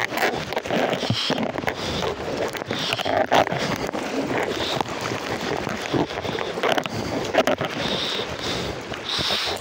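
Rushing floodwater around a kayak, an uneven noisy wash, with irregular knocks and scrapes close to the microphone.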